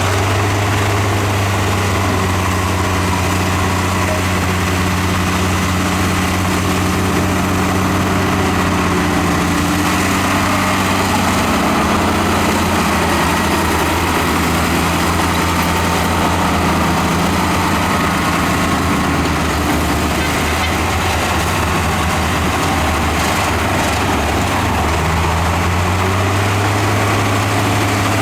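Heavy diesel engine of an earthmoving machine running steadily, its pitch shifting around the middle and again near the end.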